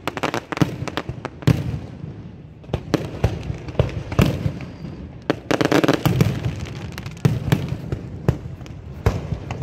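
Fireworks going off: an irregular string of sharp bangs and crackles, with a thicker, louder volley about six seconds in.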